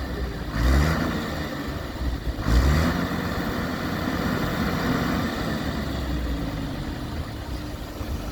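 JCB 3DX backhoe loader's diesel engine revving under hydraulic load: it surges up about a second in and again near three seconds, then runs on at steady high revs.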